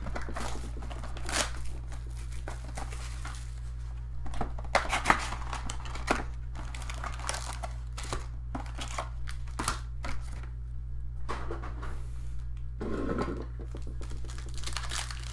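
Card packs and a hobby box being opened by hand: irregular tearing and crinkling of pack wrappers and box packaging, with scattered clicks of handling. A steady low hum runs underneath.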